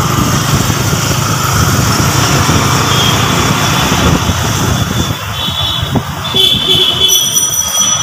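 Motorcycle riding along a road: the engine is running, with wind and road noise as a dense rumble. The rumble eases about five seconds in, and a few faint high-pitched tones sound near the end.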